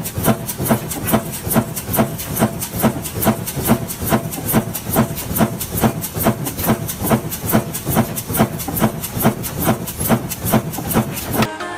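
Rapid, evenly spaced strikes, about four a second, over a hissing background, stopping abruptly near the end.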